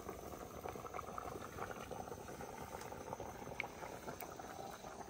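Pot of water with sweet potatoes boiling on the stove: steady faint bubbling with small pops.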